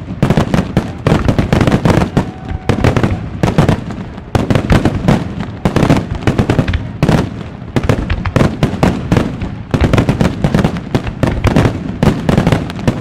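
Wide starmine fireworks barrage: aerial shells launching and bursting in rapid succession, several loud booms and cracks a second overlapping without a break.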